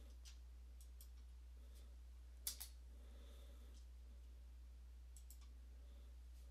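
Near silence with a low steady hum, broken by a few faint clicks from computer input. The loudest is a quick double click about two and a half seconds in.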